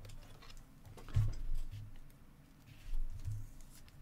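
Hands handling trading cards on a table: a few short dull thumps with faint light taps and clicks between them.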